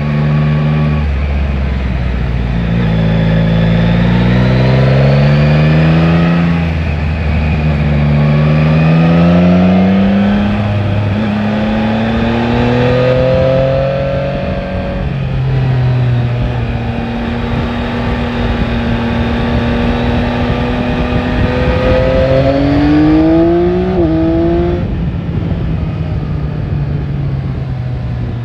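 Yamaha Tracer 9 GT's three-cylinder engine heard on board while riding, accelerating through the gears: the pitch climbs and falls back at each of several upshifts in the first half, holds fairly steady for a stretch, then climbs again near the end, over a steady rush of wind noise.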